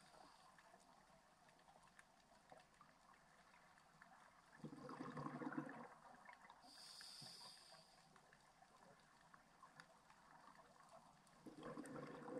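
Scuba diver breathing through a regulator, heard underwater and faint: a gush of exhaled bubbles about four and a half seconds in and again near the end, with a short hissing inhale between them.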